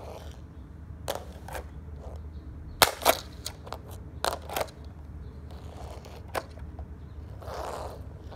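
Irregular sharp clicks and taps, about ten of them, the loudest pair about three seconds in, over a low steady hum.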